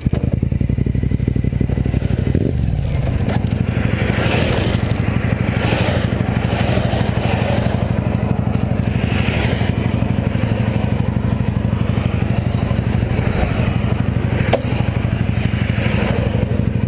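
Motorcycle engine idling steadily, its note dipping briefly about two and a half seconds in.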